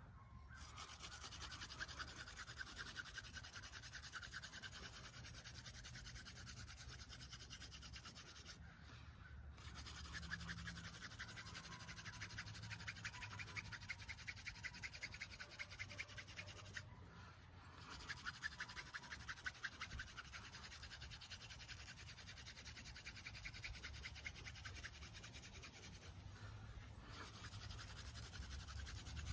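Cattail hand drill spun between the palms on a cottonwood hearth board: a fast, steady scratching rub of spindle against board, broken three times by short pauses.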